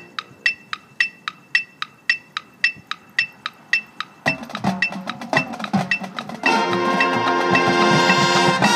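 A metronome ticks steadily at about three clicks a second, as used to keep tempo at marching band rehearsal. About four seconds in the band joins with short low notes, and about two seconds later it plays a loud held chord that cuts off sharply near the end.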